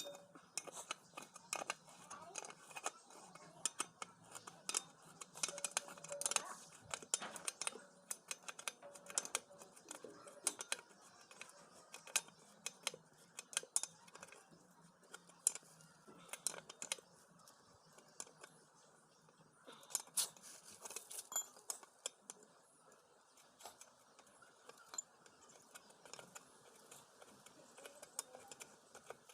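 Scattered light clicks and clinks, like small metal tools or parts being handled, irregular throughout.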